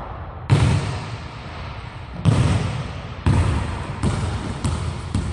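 Basketball bouncing loose on a hardwood gym floor, a series of sharp bounces coming closer and closer together as it loses height, each one echoing around the large hall.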